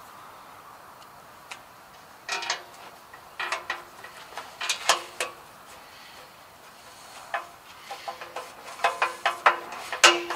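Hand screwdriver clicking and clinking against the metal guard of a walk-behind string trimmer's deck as screws are driven in by hand. Irregular clusters of sharp metallic ticks, some with a brief ring. The loudest cluster comes near the end.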